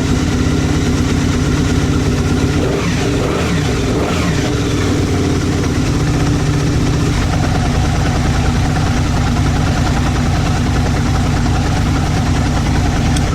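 First-generation Aprilia RSV Mille/Tuono 998 cc 60° V-twin idling steadily, freshly started after a battery-cable upgrade, with a brief blip of the throttle about three seconds in.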